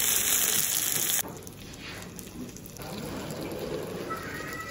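Beef sizzler hissing loudly on its hot cast-iron plate. The hiss cuts off suddenly about a second in, leaving quieter background noise.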